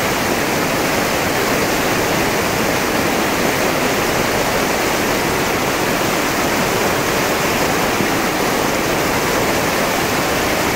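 Whitewater rapids of the Nagara River: fast, turbulent water rushing and churning over a rocky bed in a loud, steady roar.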